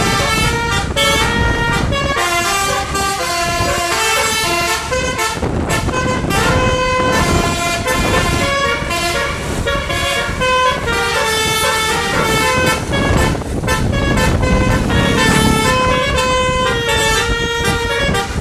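A bus's multi-tone telolet horn playing a quick string of notes as a melody, over the low running rumble of the bus.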